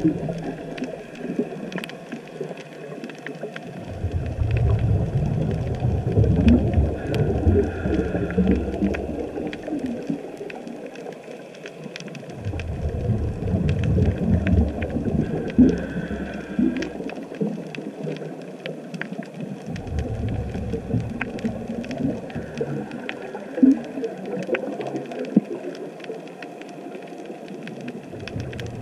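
A scuba diver's regulator exhaling bubbles underwater, in about three long bubbling bursts with quieter pauses between breaths. A steady scatter of sharp clicks runs underneath.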